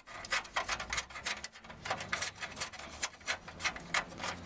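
Socket ratchet clicking in quick, uneven strokes as a 13 mm bolt is undone.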